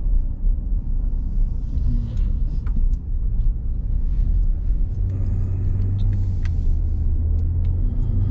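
Car cabin noise while driving at low speed: a steady low engine and road rumble, with a steadier low hum setting in about five seconds in and a few faint clicks.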